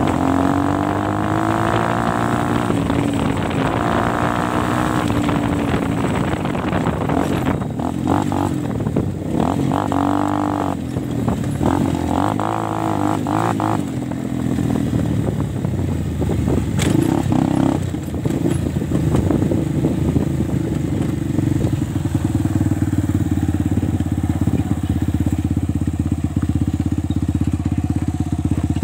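DTM 150 dirt bike engine running under way on a dirt track, its revs rising and falling with the throttle through the first half, then holding steadier near the end. Knocks and rattles come through around the middle.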